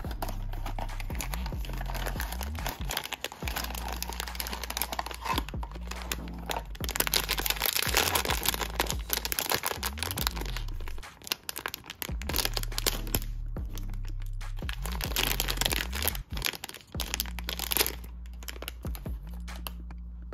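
A printed plastic blind-box bag crinkling and tearing as it is handled and opened, loudest around the middle and again about three-quarters of the way through. Background music with a steady low bass line runs underneath.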